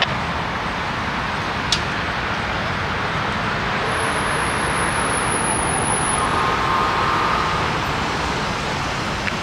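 Steady vehicle road noise: a continuous rushing hiss with no distinct events.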